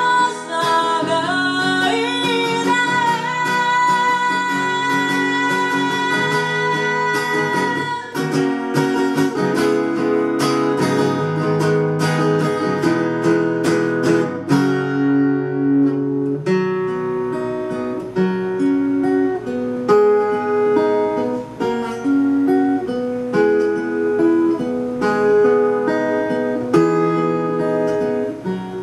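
A woman's voice holds a long sung note over acoustic guitar, and about eight seconds in the voice stops. The acoustic guitar carries on alone, strumming and picking chords in an instrumental passage.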